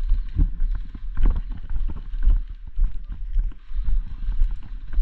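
Footsteps of a person walking at about one step a second, each a dull thump with some clicks and rustle of gear, over a steady low rumble.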